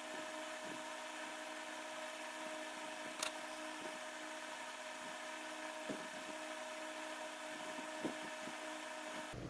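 A steady, faint hum with a few soft clicks or taps scattered through it.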